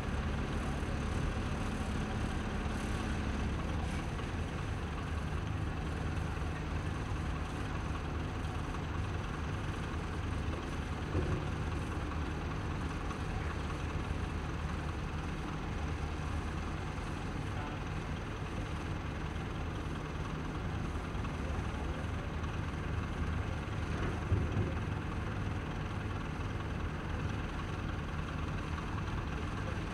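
Heavy engine of harbour craft or machinery running steadily, with a knock about 11 seconds in and a louder knock about 24 seconds in.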